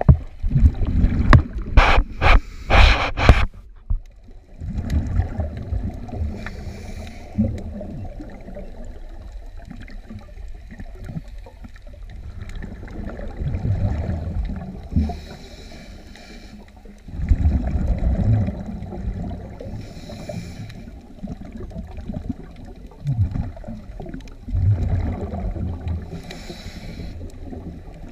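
Underwater sound of a diver's breathing: hissing inhales and rumbling bubbles of exhales coming back about every six seconds over a steady low water murmur. The first few seconds hold louder rushing and bubbling water close to the camera.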